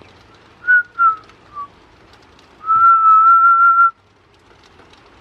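A person whistling: three short notes in the first couple of seconds, then one long, slightly wavering note lasting about a second.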